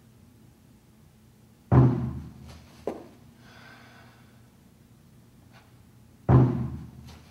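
Two beats of a large drum about four and a half seconds apart, each booming low and ringing out, keeping the count for the slow movements of the form. A lighter knock follows about a second after the first beat, and a soft breathy hiss of deep breathing sounds between the beats.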